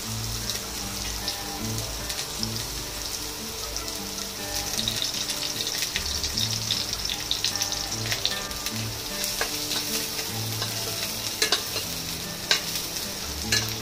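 Sliced onions sizzling as they fry in oil in a nonstick kadhai, stirred with a spatula. There are several sharp clicks of the spatula against the pan in the last few seconds.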